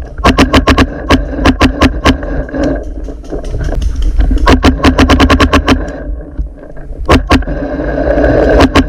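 Planet Eclipse Etha 2 .50 cal paintball marker firing in rapid volleys of about five shots a second: a long string at the start, another in the middle, two single shots, and a short burst near the end, over a steady hum.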